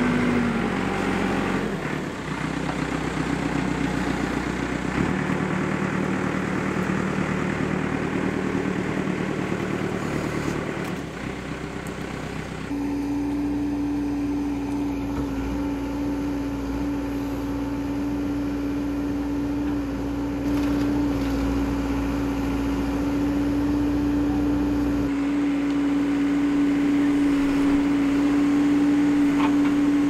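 Backhoe loader's diesel engine running steadily as the machine drives and works its grapple arm on logs. Partway through, a strong steady hum rises over the engine as it works harder.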